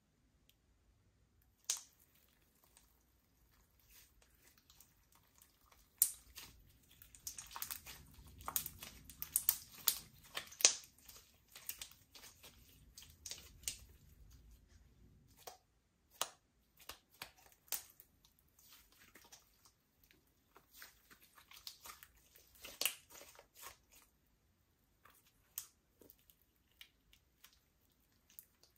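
Slime being worked by hand, giving sharp wet clicks and crackly pops from trapped air. The clicks come in a dense run through the middle and are scattered and sparse before and after.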